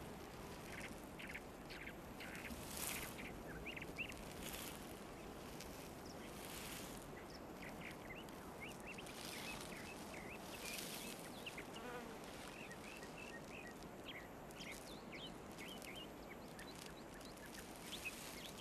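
Faint outdoor ambience: insects buzzing in short bursts of a fraction of a second, with scattered small high chirps over a soft steady hiss.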